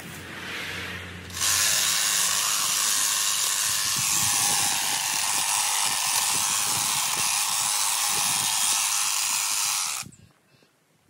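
Honda HHH 36 AXB cordless battery hedge trimmer running and cutting into a dense hedge, a loud steady high buzzing hiss. It starts about a second and a half in and cuts off suddenly near the end.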